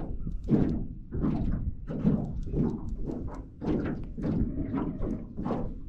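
Small waves slapping against the side of the boat's hull in a run of dull thunks, about two a second.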